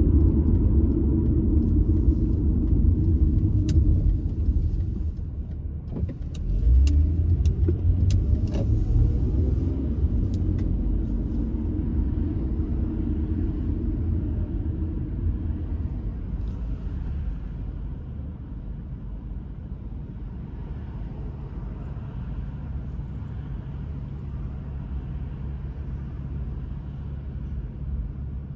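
Car's engine and tyre noise heard from inside the cabin while driving: a steady low rumble that eases off over the second half as the car slows to a near stop, with a few faint clicks about four to eight seconds in.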